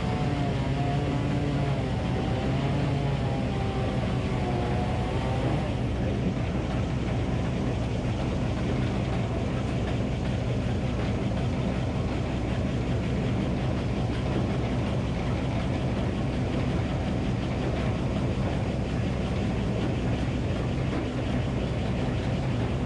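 Minneapolis-Moline HEB 605-cubic-inch engine running steadily, powering the Frick circular sawmill. For the first six seconds or so a higher tone wavers up and down over the engine, then fades out.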